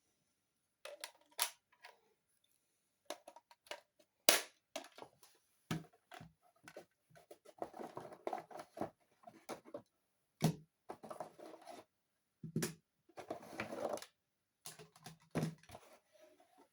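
Irregular clicks and crinkling rustles as the packaging and plastic parts of a boxed robot toy figure are handled and unpacked.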